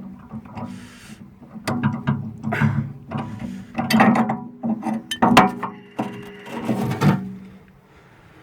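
Metal clinks, knocks and scraping as a bolt-on extender is unbolted and pulled off a steel tractor loader bucket. The knocks come at irregular intervals over a steady low hum.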